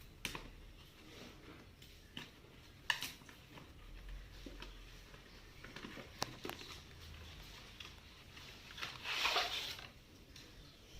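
Faint handling of a boxed firework being opened: scattered clicks and taps on the packaging, with a short rustle about nine seconds in.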